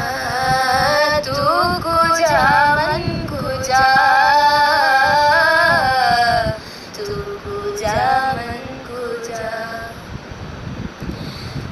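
A song: a voice singing a melody with long held, sliding notes over soft backing music, quieter in the second half.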